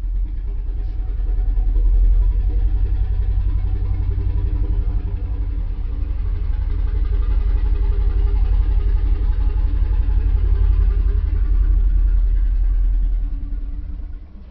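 Made-up creature sound effect for Pliosaurus macromerus: one long, very deep rumble that swells in over the first couple of seconds, holds steady, and fades out near the end.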